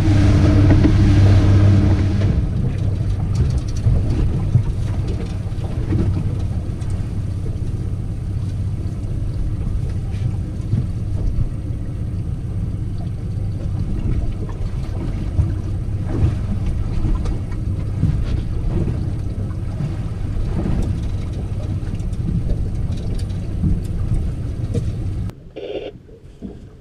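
Boat under way: Suzuki 250 outboard running with wind and water noise, loudest for the first couple of seconds, then steadier. Near the end the level drops suddenly to a much quieter hiss.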